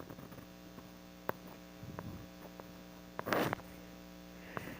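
Steady low electrical hum with a few faint clicks and a short rustle about three seconds in.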